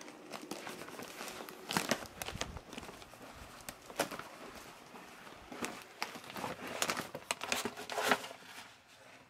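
Camera handling noise: irregular rustling and crinkling against the microphone, with scattered clicks and knocks, the loudest about two seconds in and near the end.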